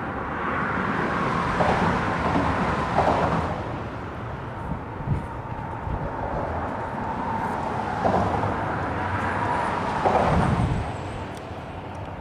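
Outdoor road traffic: vehicles passing, with the noise swelling twice as cars go by over a steady background hum.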